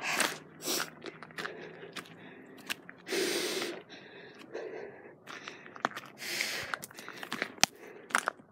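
Footsteps crunching on a loose gravel path, at an uneven walking pace, with a short rush of noise about three seconds in.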